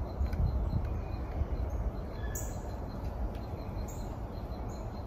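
Birds chirping in short scattered calls from the trees, over a steady low rumble.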